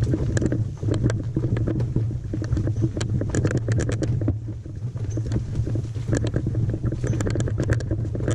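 Footsteps and the knocking and rattling of a canoe and gear carried overhead on a portage trail, over a steady low rumble. The clicks come irregularly, in small clusters.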